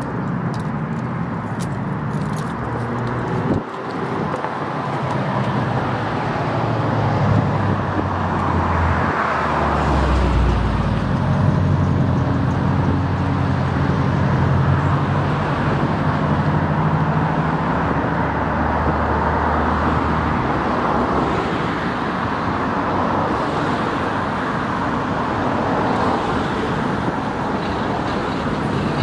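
Steady outdoor rumble of distant traffic and engines, with a low engine drone that swells about eight seconds in and fades after about twenty seconds.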